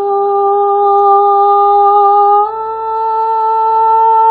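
A woman's voice toning: one long held sung note that steps up to a higher held note about two and a half seconds in.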